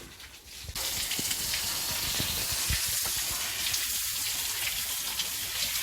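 Steady rushing hiss of running water that starts abruptly just under a second in and carries on evenly.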